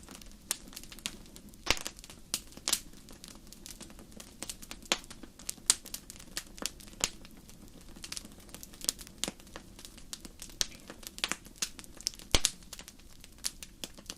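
Real wood fire in a fireplace crackling: irregular sharp pops and snaps, a few to several a second, over a faint steady low hiss, with two louder pops, one about two seconds in and one near the end.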